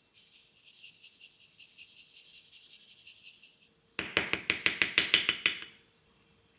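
Kitchen preparation sounds: a light, rhythmic rubbing for about three and a half seconds, then a quick run of about ten sharp, louder knocks.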